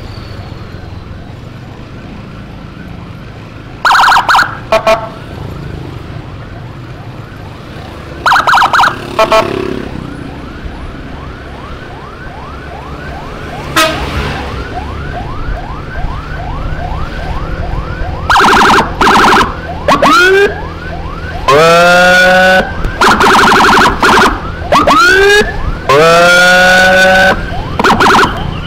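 Emergency sirens clearing a lane for an ambulance: a motorcycle escort siren sounding in short loud horn-like blasts and rising whoops, with a fainter fast-cycling siren in the middle stretch, over engine and road noise. The blasts come twice in the first ten seconds, then in a rapid run mixed with rising wails near the end.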